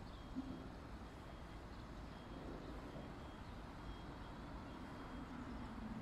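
Faint, steady low outdoor rumble, with short faint high beeps recurring irregularly and a brief bump about half a second in.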